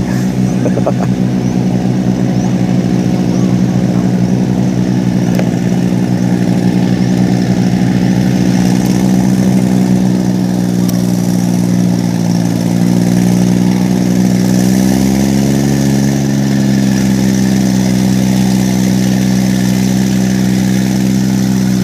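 Yanmar C30R crawler carrier's diesel engine running steadily as the loaded machine travels, with a slight dip in engine pitch about twelve seconds in that picks back up a few seconds later.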